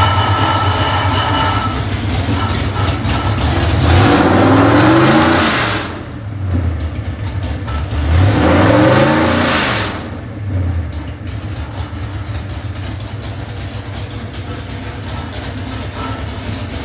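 503 hp 396 ci small-block Chevy marine engine running on an engine dyno. It idles steadily and is blipped twice, about four seconds apart, each rev rising and falling back to idle.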